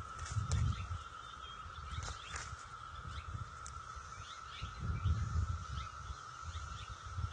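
Outdoor nest-cam ambience: short, falling bird chirps scattered throughout over a steady thin high hum. Low gusty rumbles come near the start and again past the middle.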